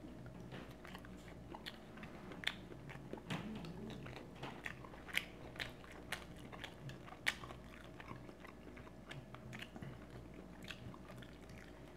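A person chewing and biting food close to the microphone, with irregular small wet smacks and crunches.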